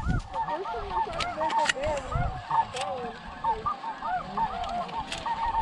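Snow goose calls: a dense, unbroken chorus of many short, overlapping yelping honks, with a few sharp clicks standing out.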